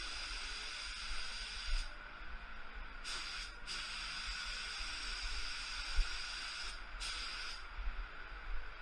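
HVLP gravity-feed spray gun hissing as compressed air atomises the paint. The hiss cuts off and restarts a few times as the trigger is released between passes, then stops near the end.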